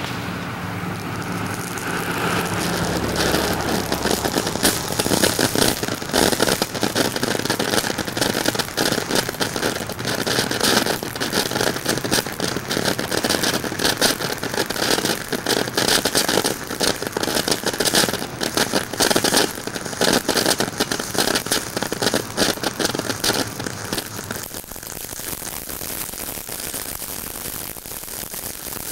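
Ground fountain firework spraying sparks: a steady hissing crackle packed with rapid little pops. It eases to a softer hiss about 24 seconds in.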